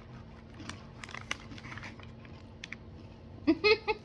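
Someone chewing crunchy Goldfish crackers, with a few short, sharp crunches spread over the first three seconds; a voice speaks briefly near the end.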